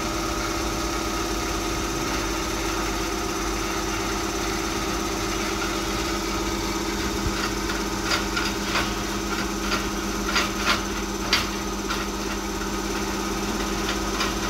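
DC motor fed by a thyristor controller, running steadily at about 1000 rpm with a steady electrical hum while its brake load is eased off. From about halfway, a run of short, irregular clicks sounds over it.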